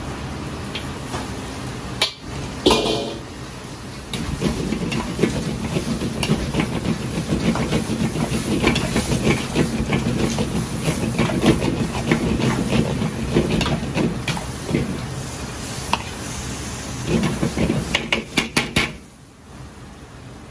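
Ginger-pork sauce sizzling and steaming as it hits hot pork and onions in a large wok, then a metal ladle scraping and clattering against the wok as the pile is stir-fried. Near the end comes a quick run of sharp knocks, after which the sound drops away.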